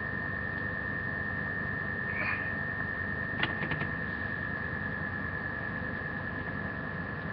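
A steady high whine over hiss, with a sharp click about three and a half seconds in and a few lighter clicks just after, as a plastic pen is handled.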